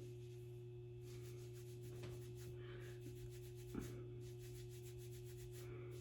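Faint rustling of fingers working through a synthetic wig's fibres, feeling for permatease, over a steady low hum.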